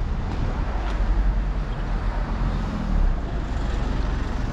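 Road traffic on a town street: cars passing with a steady low rumble that swells a little about one second and three seconds in.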